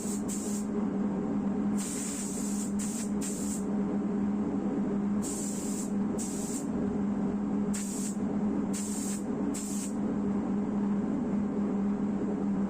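Compressed-air spray gun hissing in short spurts, about nine of them in the first ten seconds, then stopping, over a steady low hum.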